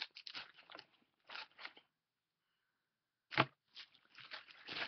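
Rustling and crinkling of packaging and sample items being handled, in short clicky bursts, with one sharp knock about three and a half seconds in, the loudest sound.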